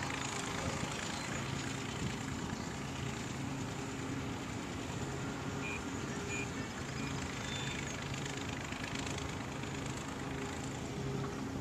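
Engines running out of sight: a steady low hum over an even wash of outdoor noise, with three short faint high peeps near the middle.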